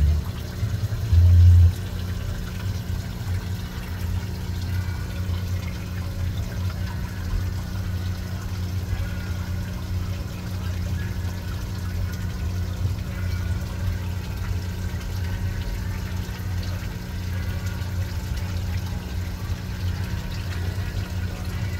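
Aquarium pump or filter running steadily, a low mains hum under a constant trickle of moving water. A brief louder low bump comes about a second in.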